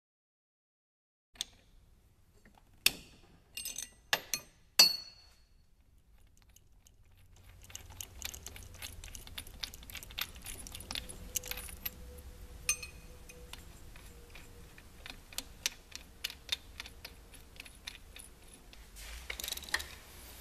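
Spark plugs being removed from a snowmobile cylinder head by hand and with tools: after a second of silence come a few sharp metallic clicks, then from about seven seconds in a steady run of small clinks and rattles over a low hum.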